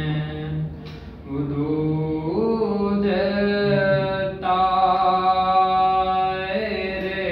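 A young man reciting a noha, singing solo with no accompaniment into a handheld microphone. He holds long, drawn-out notes, breaks briefly for breath about a second in, slides up in pitch and then holds one long note in the middle.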